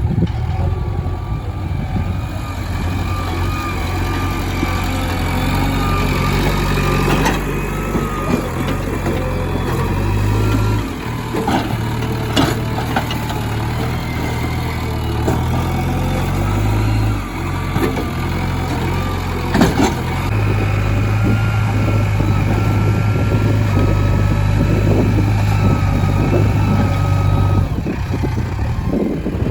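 JCB 3DX backhoe loader's diesel engine running under varying load, its hum stepping up and down in pitch several times, with a few sharp metallic knocks from the machine.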